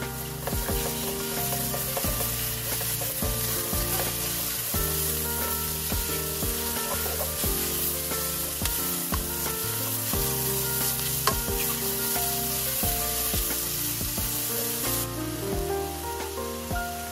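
White beech mushrooms (snow-white shimeji) sizzling as they dry-fry in a pan, with the clicks and scrapes of a utensil stirring them. The sizzle eases about two seconds before the end. Background music plays underneath.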